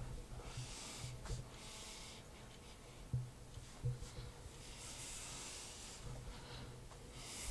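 Faint strokes of a whiteboard eraser wiping marker off the board, a soft hiss with each stroke and short pauses between them, over a low steady room hum.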